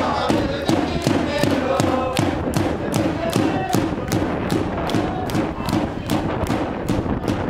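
A small group of football supporters chanting together and clapping in a steady rhythm, about three claps a second.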